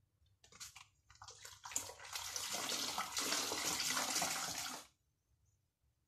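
A steady rush of running water, lasting about three seconds and stopping abruptly, after a few light knocks and rustles.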